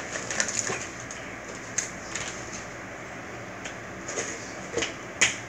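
Slime being squeezed and stretched by hand, giving scattered small clicks and crackling pops, with one sharper click near the end.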